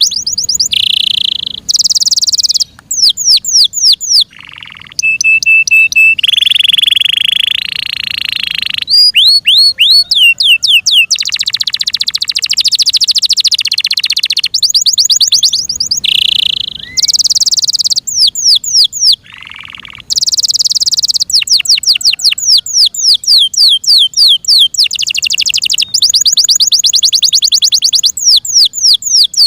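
F1 Yorkshire canary singing a long, varied song: fast trills of repeated notes, held steady whistles and rolling passages, with short pauses between phrases.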